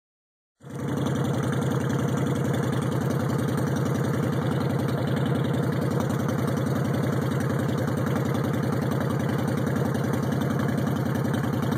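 Honda Shadow Phantom's V-twin engine idling steadily through a Vance & Hines aftermarket exhaust, with an even, rapid lumpy pulse.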